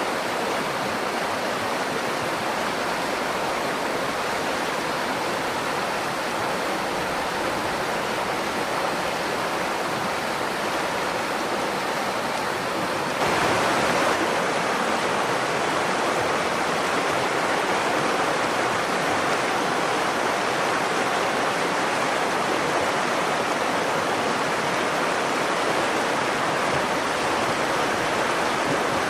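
River water flowing, a steady rushing with no break; about 13 seconds in it abruptly becomes slightly louder and brighter.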